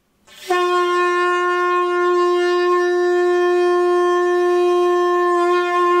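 A person blowing into the end of a Trailtech bicycle handlebar like a horn: one long, steady note at a single pitch, starting about half a second in.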